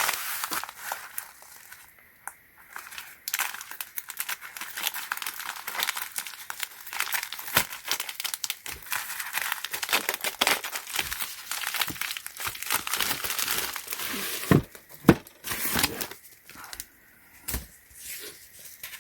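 Packaging being unwrapped by hand, crinkling and tearing for several seconds, followed by a few sharp knocks as the item is handled.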